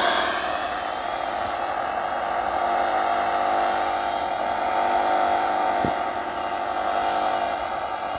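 Sony shortwave receiver tuned to 15420 kHz AM, playing static hiss with steady hums and faint wavering whistle tones, the heterodyne-like "woo-woo" noise heard in place of the expected broadcast. A single short click about six seconds in.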